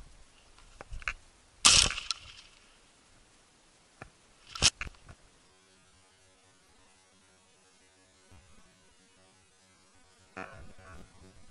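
Sharp cracks and crackling close to the microphone: a loud one about a second and a half in with a short tail, a second about three seconds later, and smaller crackles around them and near the end.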